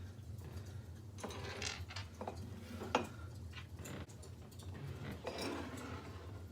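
Small clicks, taps and rustles of objects being handled while setting up to hang a picture, with one sharper click about three seconds in. A low steady hum runs underneath.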